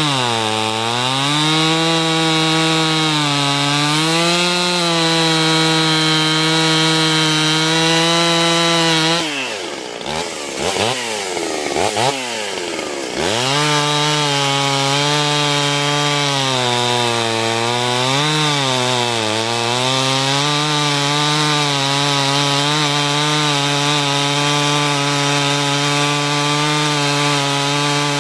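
72cc two-stroke Pioneer P45 chainsaw with a six-port cylinder, cutting wood at high revs. Its pitch sags and recovers as the chain bites under load. About nine seconds in, the revs fall away and swing sharply up and down for a few seconds, then it settles back into the cut.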